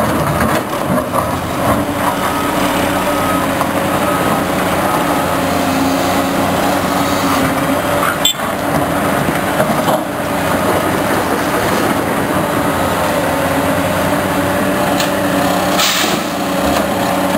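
Heavy diesel construction machinery running steadily, with a few sharp clanks, one about halfway through and one near the end.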